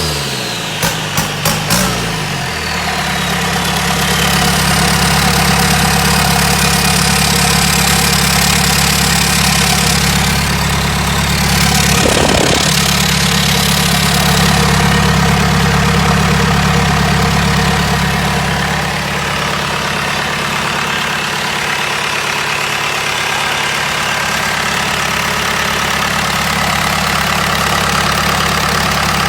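Diesel racing-boat engine running at a steady idle. A few short sharp bursts come about a second in, and a brief burst of noise comes around twelve seconds in.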